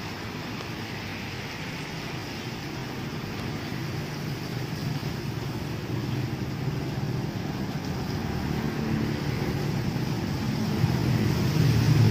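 Scania K360iB coach's diesel engine running as the bus moves slowly on a wet road, growing louder toward the end.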